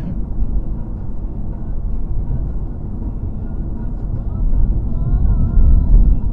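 Road and engine rumble inside a car's cabin while cruising on a highway: a steady low rumble that swells a little about five seconds in.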